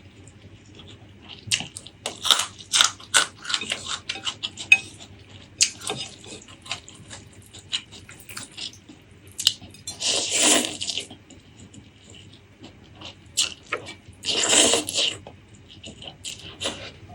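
Close-miked eating: wet chewing and mouth clicks with crackles, and two slurps of about a second each, one near the middle and one about three-quarters through.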